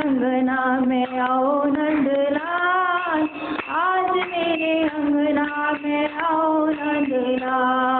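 A woman's solo voice singing a devotional bhajan into a microphone, in long held notes that slide and bend between pitches. No drum or other instrument is heard.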